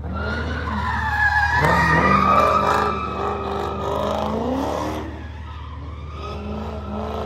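A car's engine revving hard while its tyres squeal and slide through a drift. It is loudest about two seconds in and dies down after about five seconds.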